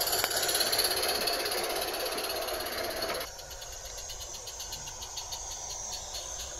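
A live-steam 16mm-gauge garden railway train running by: a steady hiss of steam with the rattle of wheels on the track. About three seconds in the sound drops away suddenly to a quieter, even, rapid beating as a small steam locomotive approaches.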